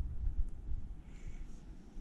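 Low rumbling handling noise on the filming phone's microphone, fading out in the first half second, then a faint soft hiss about a second in.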